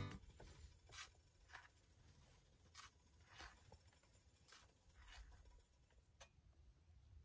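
Faint scrapes of a spoon scooping ground coffee out of a tin, several short soft strokes a second or so apart.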